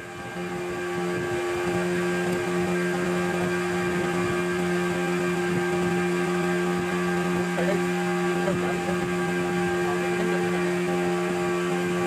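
Ferry boat's engine running steadily, a continuous low drone heard from on board.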